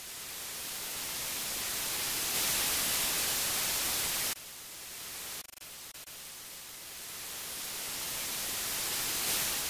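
White-noise static hiss that slowly swells, drops abruptly about four seconds in, stutters briefly, then swells up again.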